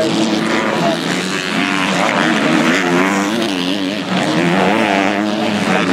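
250-class motocross bikes racing through a dirt corner, several engines at once revving up and down as the riders brake and accelerate.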